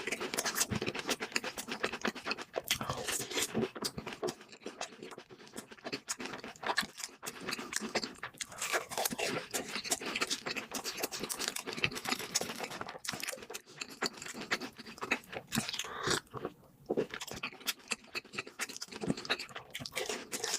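A person chewing crunchy fried food, with a dense, irregular run of crisp crunches and bites and a few brief pauses.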